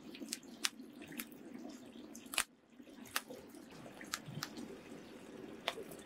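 Wood campfire crackling: scattered sharp snaps and pops at irregular intervals over a faint steady background.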